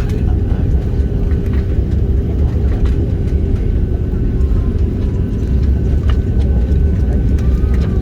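Steady low rumble inside the cabin of an Airbus A330-300 airliner, with a constant hum over it from the engines and airflow.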